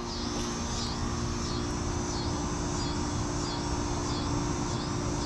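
Air-conditioner condensing units running: a steady hum with fan noise. Over it, an insect calls in a high, pulsing rhythm, about three pulses every two seconds.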